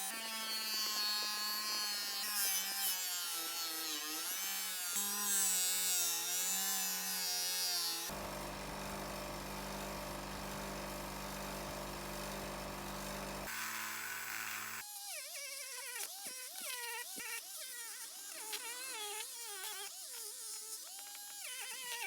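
Small rotary polishing tool whining as it polishes metal, its pitch dipping and wavering as it is pressed against the part. About eight seconds in it cuts to a steadier, deeper motor hum, then back to the wavering whine.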